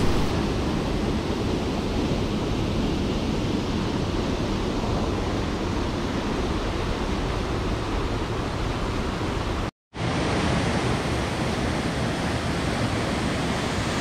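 Steady rush of a mountain stream tumbling over rocks and small waterfalls. It cuts out completely for a split second about ten seconds in, then resumes at the same level.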